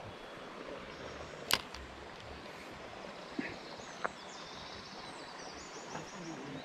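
A spinning reel handled just after a cast: one sharp click about a second and a half in, most likely the bail snapping shut, then two fainter clicks. Steady outdoor ambience at the water's edge, with faint high twittering in the second half.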